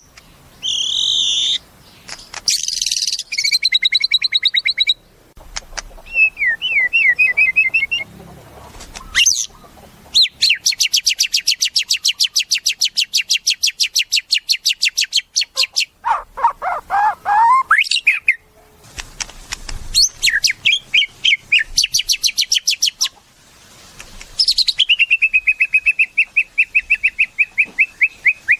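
White-rumped shama (murai batu) singing a varied song of whistled phrases and glides. In the middle comes a long, very fast run of repeated notes lasting several seconds, and near the end a steady series of rapid repeated notes.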